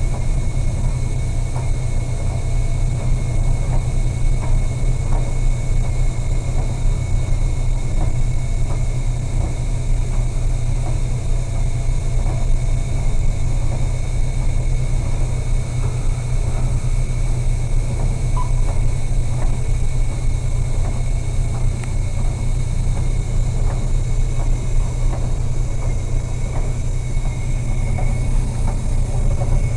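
Steady low rumble of a ship's engines and machinery, with a faint steady high whine and scattered light ticks and knocks.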